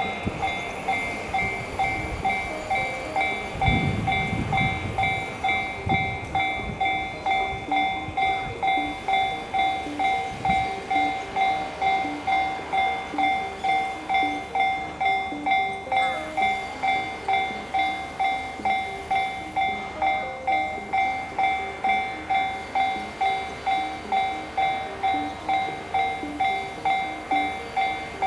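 Japanese railway level-crossing warning bell ringing steadily at about two strikes a second, the signal that the crossing is closing for a train. Low rumbles sound under it in the first few seconds.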